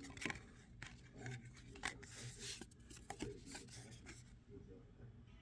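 Faint rustling, light ticks and sliding of trading cards being handled, as a card is slid off a stack and turned over in the hands.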